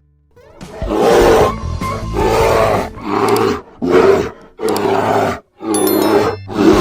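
A large wild animal roaring repeatedly: a series of loud, rough calls about a second apart, over background music.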